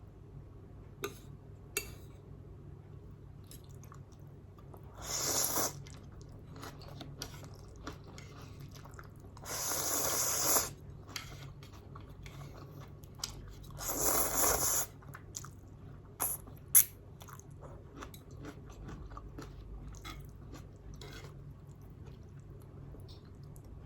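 Close-miked eating of Nongshim non-fried spicy instant noodles: soft scattered chewing clicks, with three louder hissing sounds about a second long, a few seconds apart, and a sharp click past the middle.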